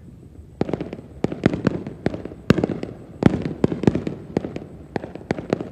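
Aerial fireworks going off: a fast, irregular run of sharp bangs, several a second, starting about half a second in, with a low rumble between them.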